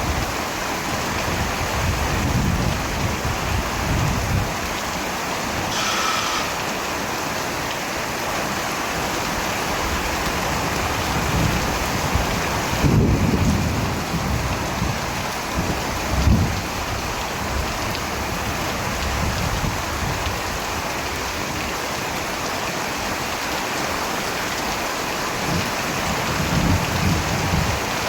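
Steady rain falling hard, with low thunder rumbling several times, loudest about halfway through.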